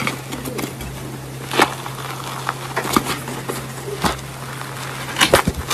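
Hands tearing open a brown, papery sheet: scattered short crackles and clicks, with a quick cluster near the end, over a steady low hum.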